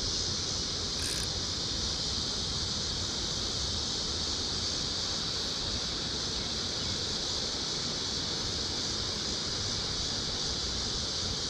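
Steady, even high-pitched drone of an insect chorus, over a low, uneven rumble.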